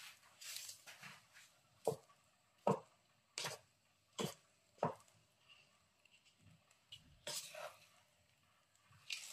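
Wooden spatula scraping and knocking against a frying pan as fried rice is stirred and turned, in a string of short strokes about a second apart with a pause partway through.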